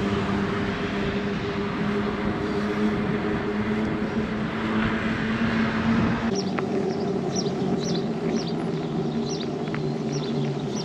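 Wind noise on the microphone over the steady hum of a mountain bike's tyres rolling on asphalt. About six seconds in, the wind noise drops away and short, high bird chirps repeat over the rolling hum.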